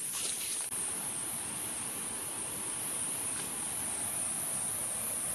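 Steady, high-pitched insect chorus in tropical forest over an even background hiss.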